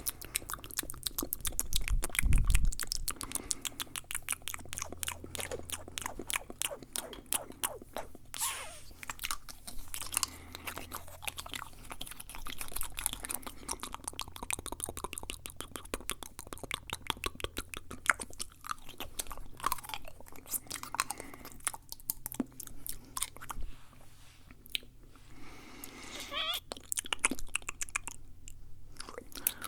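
Fast, aggressive ASMR mouth sounds close to the microphone: rapid wet clicks and smacks of tongue and lips, many per second, with a few short slurping glides.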